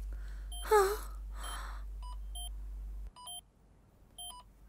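Short electronic beeps from a laptop's on-screen interface, sounding in quick pairs several times while a download gauge runs. About a second in there is a brief swooping sound.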